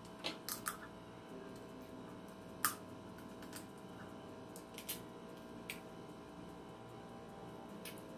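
Close-up eating sounds of shrimp in butter sauce being eaten by hand: wet mouth clicks and smacks while chewing. A handful of sharp clicks come at irregular moments, the loudest about two and a half seconds in, over a faint steady hum.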